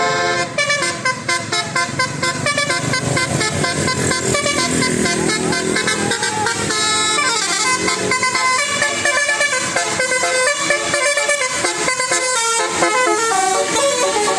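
Multi-tone 'telolet' bus horn playing a quick tune of short, changing notes.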